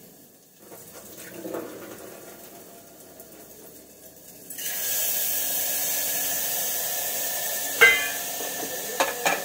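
Water running at the sink while red lentils are rinsed, then about halfway a sudden loud, steady sizzle and hiss of steam as the wet lentils go into a hot pan of butter and vegetables. Near the end come a few sharp metal clinks.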